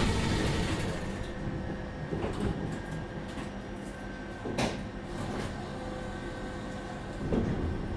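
Inside a Tatra T4DC tram: a steady electrical hum with a few sharp clunks and knocks, the loudest about halfway through and another near the end. The sound fades over the first second.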